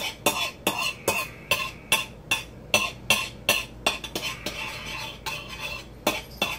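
A metal utensil clinking and scraping against a dish while stirring ketchup and mustard together, about two or three taps a second. The taps ease off for a couple of seconds and pick up again near the end.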